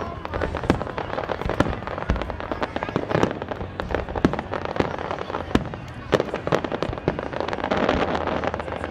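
Fireworks display: a rapid, irregular string of bangs and crackles from bursting aerial shells.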